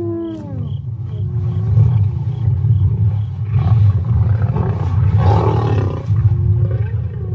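Lions and spotted hyenas fighting: the lions growl in a continuous deep rumble while the hyenas give short pitched yelps that rise and fall. A loud snarling flurry breaks out about five seconds in.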